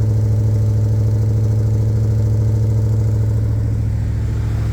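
1976 Chevy G10 van's engine idling steadily on its cold fast idle, fed by a newly fitted Edelbrock carburetor, just after its first cold start. It runs smoothly and evenly.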